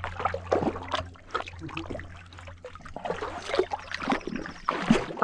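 A dog swimming, water splashing and sloshing irregularly close around a camera strapped to her back at the waterline.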